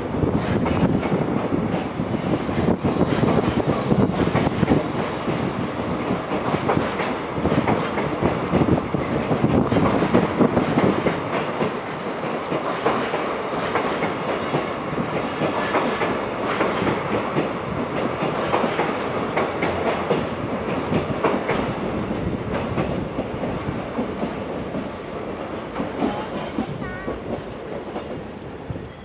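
Freight train's container wagons rolling past on the rails as the train pulls out, their wheels making a dense, continuous clatter. It eases off over the last few seconds as the last wagon goes by.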